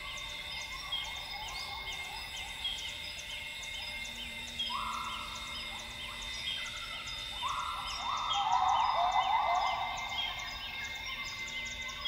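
Northern grey gibbons singing: a short phrase of calls about five seconds in and a louder run of calls from about eight to ten seconds in. Behind them is a steady rainforest chorus of insect drones and a short falling bird-like note repeated about twice a second.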